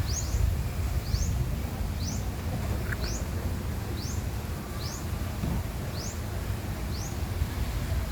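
A bird calling in short, high, rising chirps, about one a second and sometimes in quick pairs, over a steady low rumble.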